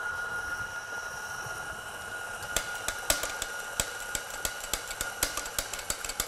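Doser grinder motor running steadily with a constant whine. From about two and a half seconds in, the doser lever is flicked over and over, giving sharp clacks about three a second as the dosing vanes turn and drop the grounds.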